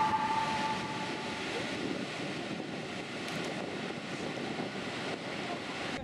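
Steady rush of a mountain waterfall and its stream: an even, unbroken noise.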